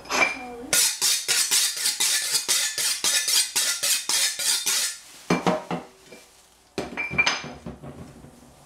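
Kitchen knife being sharpened: quick metal-on-metal scraping strokes, several a second, for about four seconds, because the knife is dull. A few scattered metallic clinks and knocks follow.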